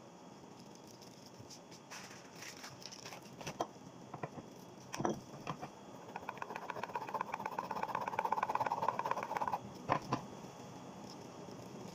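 A block of white cheese is rubbed quickly against a handheld grater, a rapid, even rasping run of strokes lasting about three and a half seconds. It comes after a few scattered light clicks and knocks, and a single sharp knock follows it.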